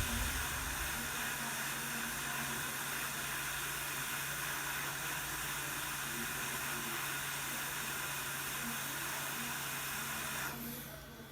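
Steady hiss with a faint low hum, cutting off about ten and a half seconds in.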